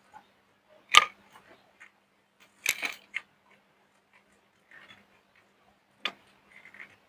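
Dry soap being crushed by hand: sharp crunches and cracks, the loudest about a second in, a cluster near three seconds and another just after six seconds, with faint crackling in between.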